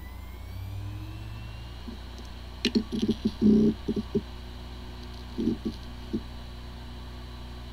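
A hard drive with corrupted disk firmware spinning up, with a faint whine rising in pitch over the first two seconds, then running with a steady hum. Its spinning is broken by two short bursts of clicks and knocks, about three and five and a half seconds in.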